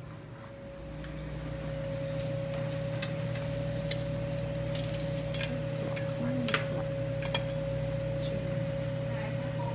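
Balls frying in oil in a skillet, a steady sizzle over a constant hum with a steady tone, with a few sharp clicks from metal tongs against the pan.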